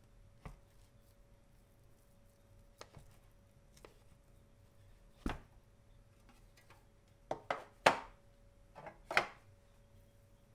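Light knocks and taps of a stainless steel mold, a plastic scraper card and a cake block being handled on a wooden board: a few faint taps, one sharper knock near the middle, then a quick cluster of louder knocks in the last third.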